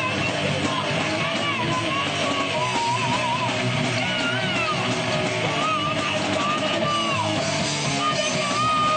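Live rock band playing, with distorted electric guitars and bass to the fore.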